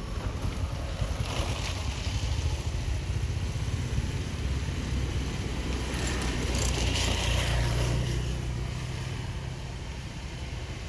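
Low rumble of motor traffic, swelling to its loudest about seven seconds in and then easing off, as a vehicle passes.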